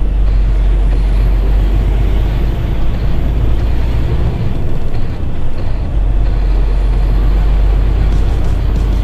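Articulated lorry driving, heard from a camera mounted outside on the cab: a steady, loud rush of engine, road and wind noise, with a heavy low wind rumble on the microphone that eases briefly about halfway through.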